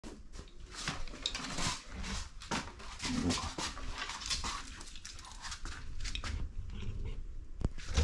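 A Jack Russell terrier making quick, irregular breathy huffs, with a short whine about three seconds in.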